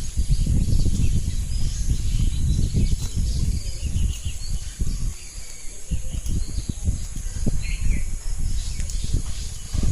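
Wind buffeting the microphone in uneven gusts, with birds chirping faintly now and then and a steady high insect drone.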